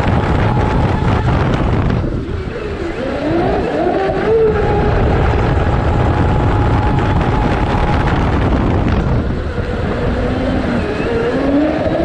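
Brushless motor of a converted Zelos 48 RC boat running on 10S at speed, a steady high whine over the rush of water and air on the hull. Twice the throttle comes off and the whine climbs back up in pitch as the boat accelerates again.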